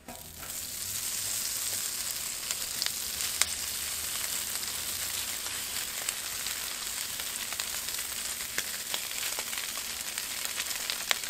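Pulled pork sizzling in hot bacon grease on a Blackstone flat-top griddle. The sizzle starts suddenly as the meat hits the steel, then holds steady with scattered crackles and pops.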